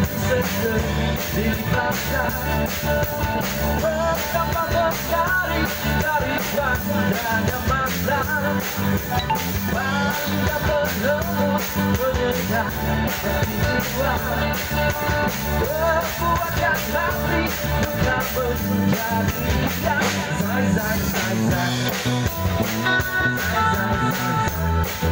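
Live rock band playing: electric guitars, bass and a drum kit keeping a steady beat, with a sung lead line over them.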